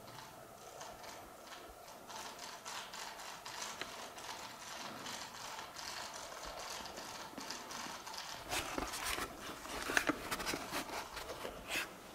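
Small motorised robot on the floor, its gears clicking and rattling irregularly. A run of louder, sharper clicks comes from about eight and a half seconds in.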